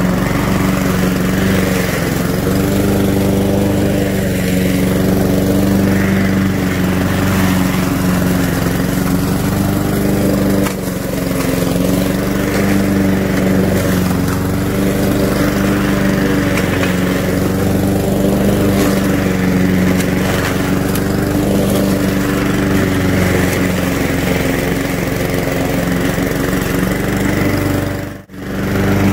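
Honda GCV160 single-cylinder lawnmower engine running steadily while cutting deep, overgrown grass, its pitch wavering slightly under the load. The sound breaks off for a moment near the end.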